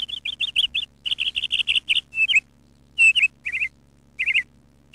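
A small bird chirping in quick runs of short, high chirps, about seven a second. The runs break off with short pauses, and a few lower, down-slurred notes come near the middle.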